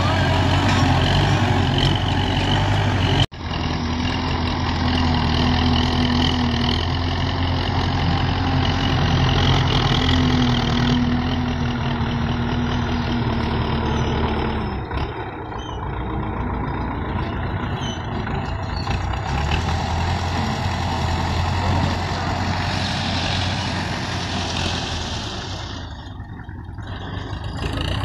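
Belarus tractor's diesel engine running steadily under load while it pushes soil with its front blade. The sound drops out for an instant about three seconds in.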